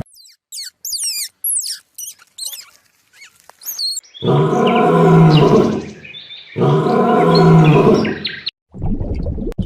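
A bird chirping in quick notes that slide up and down, then two long, loud animal calls of about two seconds each, one after the other.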